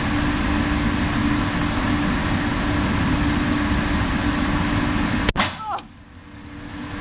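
Steady, loud background rumble and hiss with a constant low hum. About five seconds in comes a single sharp click, after which the noise suddenly drops away and then slowly returns.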